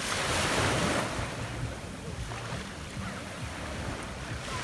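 Sea waves washing onto a pebble beach. A wave surges in at the start, and its wash fades over the next seconds before the next one builds near the end.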